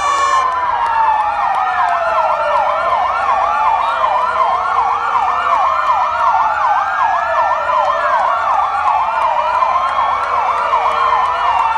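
Several emergency-vehicle sirens sounding at once, steady and loud: slow rising-and-falling wails overlapping a fast yelping tone.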